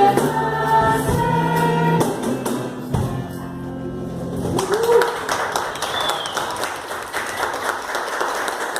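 A vocal group with acoustic guitar and bass sings and holds the song's final chord, which stops about four and a half seconds in; the audience then applauds.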